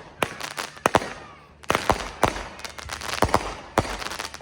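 Consumer fireworks going off in a rapid, irregular string of sharp bangs and crackles, several a second, each with a short echoing tail.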